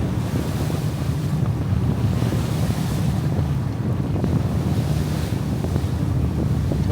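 Fishing boat under way at sea: a steady low rumble with the rush of wind and water, and wind buffeting the microphone.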